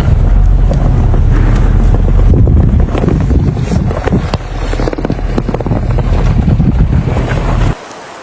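Heavy wind buffeting the microphone over a low rumble, likely from traffic in the storm. It cuts off suddenly near the end, leaving a quieter steady hiss.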